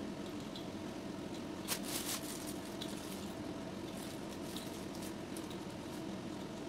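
Scattered clicks and light rattles of a metal microphone scissor-arm stand being handled and fitted, with one sharper click a little under two seconds in, over a steady background hum.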